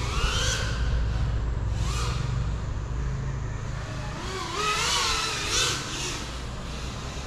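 FPV quadcopter's electric motors whining, the pitch rising and falling as the throttle changes, loudest about five seconds in, over a steady low rumble.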